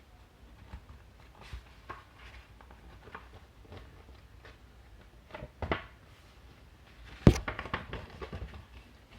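Sheet of thick paper being handled and folded in half, with soft rustles and scattered light taps, and a sharp knock about seven seconds in.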